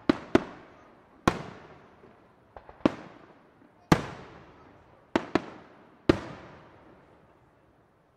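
Large aerial firework shells bursting high overhead: about nine sharp bangs, some in quick pairs, each trailing off in a rolling echo. The last comes about six seconds in and dies away.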